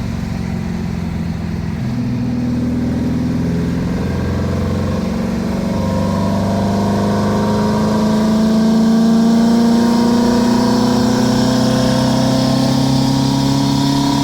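Air-cooled 1600 flat-four engine of a 1977 VW Brasília, heard from inside the cabin while driving. Its pitch shifts about two and five seconds in, then climbs slowly and steadily as the car pulls under throttle.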